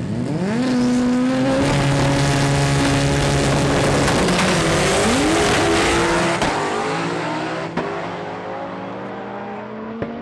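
Drag race cars launching side by side at full throttle. The engine pitch climbs sharply in the first second and holds, then drops and climbs again at a gear change about five seconds in, and the sound fades as the cars run away down the strip.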